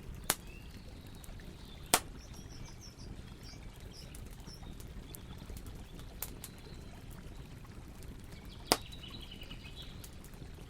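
Campfire burning with a steady low rush and four sharp crackling pops, the loudest about two seconds in and near the end. Birds chirp briefly in the background, twice.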